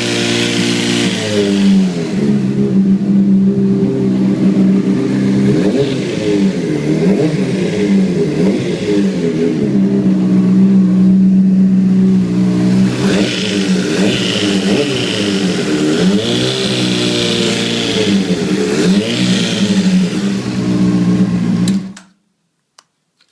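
A 2006 Honda CBR600RR's inline-four engine running with a steady hum. Its pitch settles lower in the first couple of seconds, and wavering tones rise and fall over it. This is the unexplained noise the bike has made since it slid in a low-speed fall. The sound cuts off suddenly near the end.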